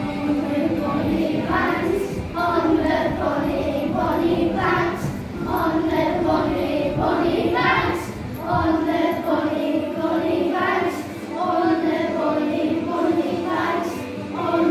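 A group of young children singing together, in phrases a few seconds long.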